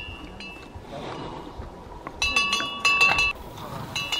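A small metal chime ringing. A light strike comes at the start, a quick cluster of strikes follows about two seconds in, and one more comes near the end. Each strike leaves a short ringing tone at the same few pitches.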